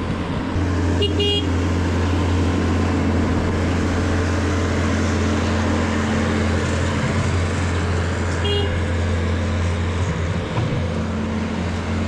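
Bobcat S530 skid-steer loader's diesel engine running steadily close by.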